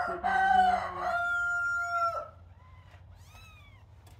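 A rooster crows once, a long held call of about two seconds that cuts off sharply, with kittens' high, rising-and-falling meows over and after it.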